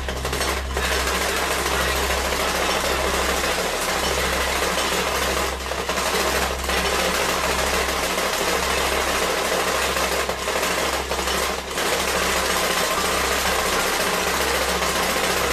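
Steady, loud mechanical buzzing with hiss over a low hum, dipping briefly a few times, from the gear motor of an animated skeleton figure as it turns its head and works its jaw.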